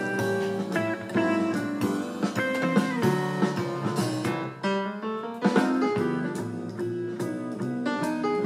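Background music led by a plucked guitar playing a melodic line.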